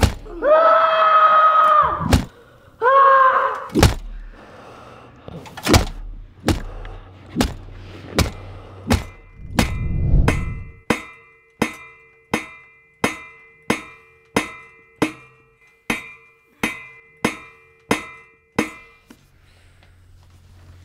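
A voice cries out twice at the start, then a run of sharp thuds sets in, settling to about three every two seconds. A held tone sounds under the thuds in the second half, and the thuds stop about two seconds before the end.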